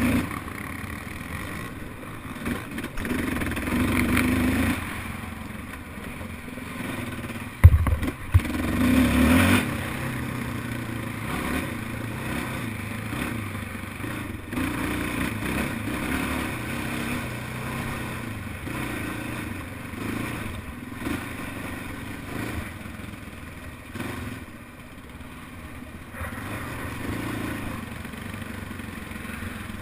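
ATV (quad) engine running and revving up and down in a hare scramble, with two sharp knocks about eight seconds in.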